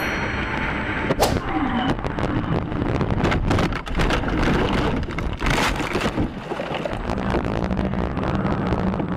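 Car crash heard from inside the car: a sharp bang about a second in, then several seconds of clattering knocks and bangs, with a steady low road rumble underneath.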